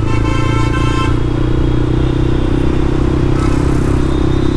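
Yamaha MT-15 motorcycle's single-cylinder engine running steadily under way through an aftermarket exhaust with its dB killer fitted. A brief higher tone sounds over it in the first second.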